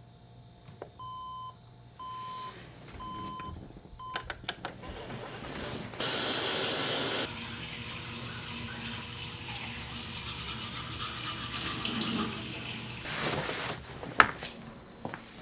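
Alarm clock beeping: four short, high beeps about a second apart, cut off partway through the fourth. Then a few clicks, and water starts running, a loud rush for about a second and then a steady flow that stops a couple of seconds before a sharp knock near the end.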